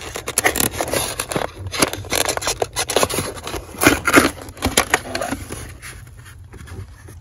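Irregular scraping, rustling and crackling of carpet and foam floor padding being pulled up and handled, with the phone rubbing against the material. It dies down about five and a half seconds in.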